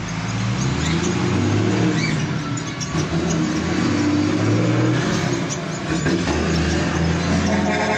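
A motor vehicle's engine running loud and low, coming in suddenly at the start and rising and falling in pitch. Short bird chirps sound faintly above it.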